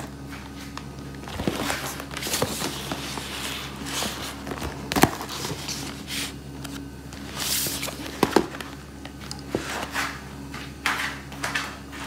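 Cardboard ice cream boxes being handled and shifted by hand: scraping and rustling of the card with knocks as boxes are set down, the sharpest about five seconds in and a pair a little after eight seconds.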